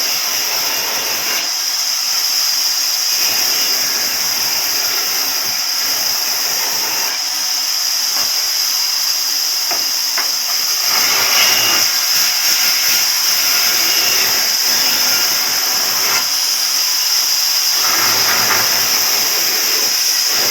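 Power saw machine for cutting wood running with a steady high hiss, with a few stretches where the noise grows fuller, likely as wood is fed through.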